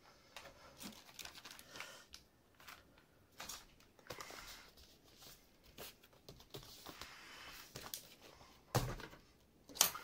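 Hands handling PC parts and their cardboard boxes on a cloth mat: scattered light clicks, taps and rustles. A heavier thump comes near the end, then a sharp knock just after it.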